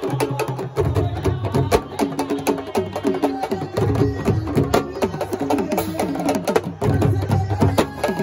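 Senegalese sabar drums played by a group with sticks and hands, a fast, dense rhythm of sharp strokes.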